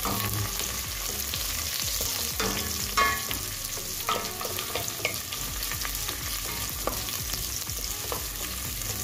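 Sliced red onion and garlic sizzling in hot oil in a stainless steel pot while they are sautéed. A wooden spoon stirs them, scraping and knocking against the pot at intervals, with one louder knock about three seconds in.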